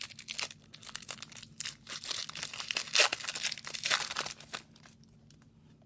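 Foil wrapper of an Upper Deck hockey card pack being torn open and peeled back, a dense run of sharp tearing and crinkling crackles that stops about three-quarters of the way through.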